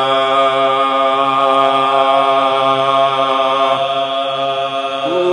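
Men's voices chanting one long, steady drone note in unison with no words: the held note of soz khwani marsiya recitation, sustained between the sung lines of the verse.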